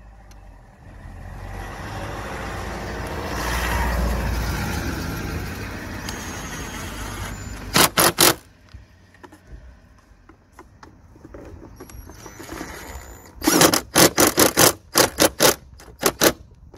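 Cordless drill-driver running T27 screws into a plastic air filter box lid, its clutch clicking in rapid bursts as the screws reach the set torque: a short burst about two-thirds of the way in and a longer rattling run near the end. Before that, a broad rushing noise swells and fades over the first few seconds.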